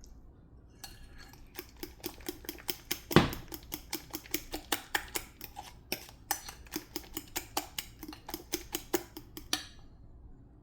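A kitchen utensil clicking rapidly and evenly against a dish, about four strokes a second, with one louder knock about three seconds in.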